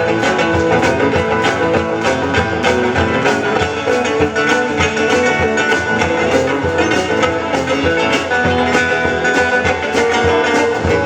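Rock and roll band playing an instrumental break, a guitar leading over a steady drum beat.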